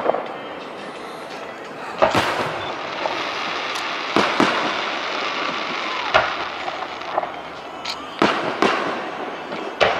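Aerial fireworks shells bursting overhead: about seven sharp bangs, roughly one every second or two and some in quick pairs, each trailing off in an echo.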